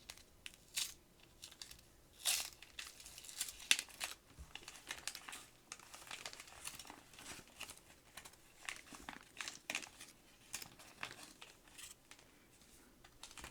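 Paper wrapper of a trading card pack being torn open and crinkled: irregular crackles and rips, loudest about two and four seconds in.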